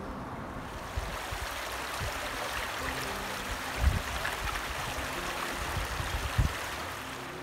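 Shallow water of the North Fork of the Virgin River rushing and rippling over rocks, a steady hiss. A few low thumps on the microphone, the loudest about halfway through and again near the end.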